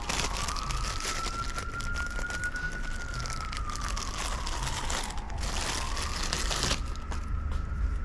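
A siren wailing, its single tone slowly rising and falling twice, over the crinkling of a plastic bag being unwrapped from a tweeter.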